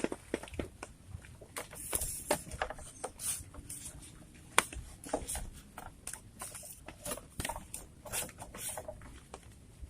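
Irregular tapping, clicking and rustling: scattered sharp taps at an uneven pace with quiet gaps between, one louder tap near the middle.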